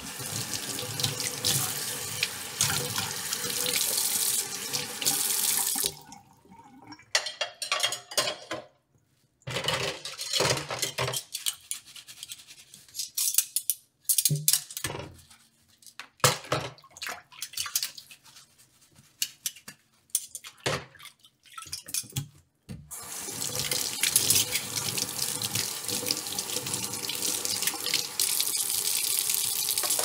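Dishes being washed by hand at a sink: the tap runs steadily into the sink, then stops for a long stretch of scattered splashes and sharp clinks of dishes being handled, and the tap runs again near the end.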